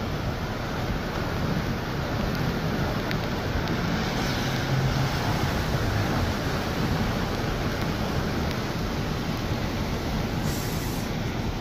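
Floodwater rushing down a swollen storm channel, a steady rushing noise mixed with heavy rain.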